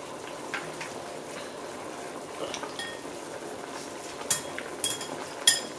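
Hot pot broth bubbling steadily in a steel pot while chopsticks and bowls clink. Three sharp, ringing clinks come in the last second and a half.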